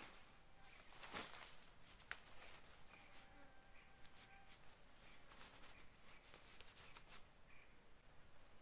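Quiet forest ambience with faint, steady insect buzzing, broken by a few brief rustles and clicks as the red flysheet is handled and pulled taut. The loudest rustle comes about a second in.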